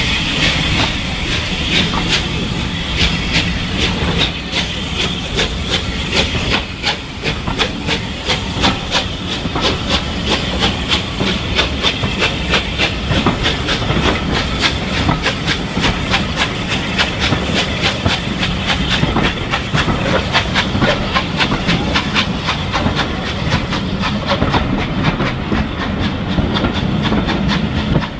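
Steam-hauled train of passenger coaches rolling past at low speed, its wheels clicking rapidly and regularly over the rail joints, with a steady steam hiss that fades after the first few seconds.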